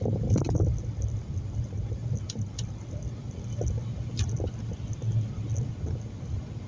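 Car driving: a steady low rumble of engine and road noise that gets louder right at the start, with a few short light clicks or rattles over it.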